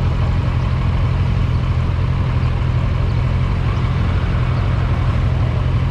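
Motorcycle engine running steadily: a low, even rumble with a hiss of noise above it.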